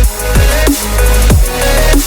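Electronic background music with a heavy bass, repeating falling bass notes and a steady beat.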